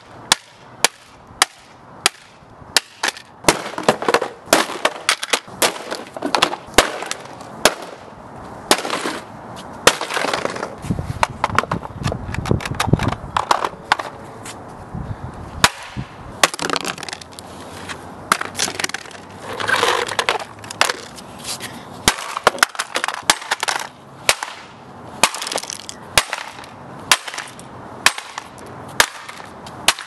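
A hammer repeatedly smashing a plastic toy refrigerator: sharp blows, roughly one or two a second, with the plastic cracking and breaking apart.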